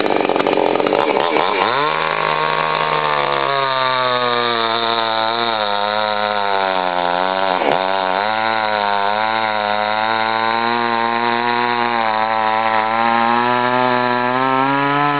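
62cc two-stroke petrol chainsaw revving high, then dropping back about two seconds in and settling to a steady idle with a slightly wavering pitch.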